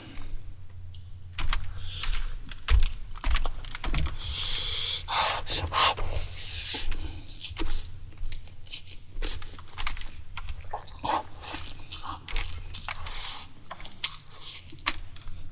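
A person eating close to the microphone: chewing, with many irregular short clicks and scrapes.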